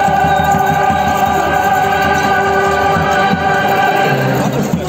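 A choir of voices singing together in long held notes, which fade out near the end.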